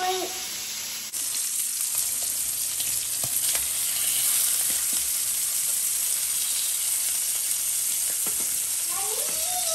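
Bacon frying: a steady sizzle with scattered small pops, starting abruptly about a second in.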